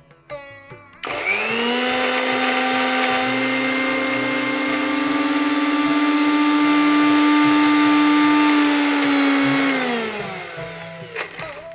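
Electric mixer grinder with a stainless-steel jar grinding Indian coral tree (kalyana murungai) leaves. The motor starts about a second in, runs steadily, then winds down with a falling pitch near the end.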